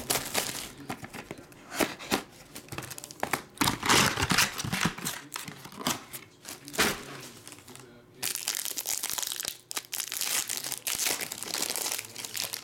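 Plastic shrink wrap being peeled and crumpled off a sealed trading-card box, then a foil pack wrapper crinkling as it is torn open. The sound is a run of irregular crackling and tearing, almost continuous near the end.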